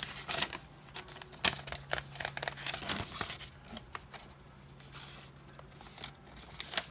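Paper and packaging being handled and unfolded by hand, with irregular crinkling, rustling and clicks, over a faint steady low hum.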